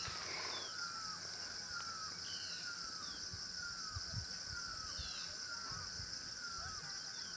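Wild birds calling: many short, falling chirps repeated irregularly throughout, over a steady high-pitched drone, with a few soft low thumps.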